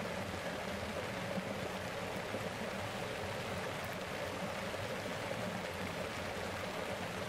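Steady rain falling on the tent fabric, heard from inside the tent as a constant, even hiss.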